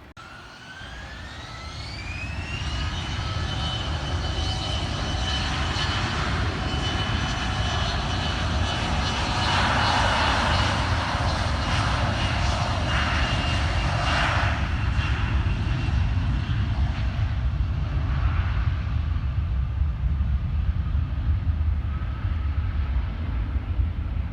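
Jet airliner engines spooling up: a whine rises in pitch over the first couple of seconds and then holds steady as the engines run at high thrust. The engine noise swells to its loudest about ten to fourteen seconds in, then eases off.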